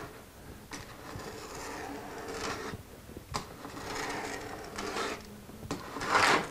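Knife blade scoring thin cherry veneer along a straightedge, a series of scratchy rubbing strokes as the cut is made in repeated passes, the loudest stroke near the end. A faint steady hum runs underneath.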